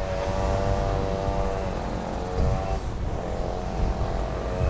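Bucket truck (elevated work platform) engine running with a steady droning hum that shifts pitch a couple of times, over wind rumble on the microphone.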